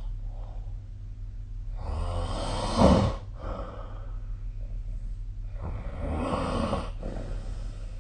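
A sleeping person snoring: two long snores about four seconds apart, the first rising to a sharp, louder peak near its end. A steady low hum runs underneath.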